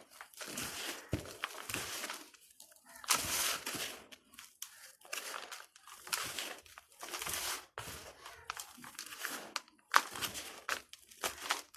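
Dry red dirt balls crunching and crumbling, crackling in irregular bursts, with a sharp snap about ten seconds in.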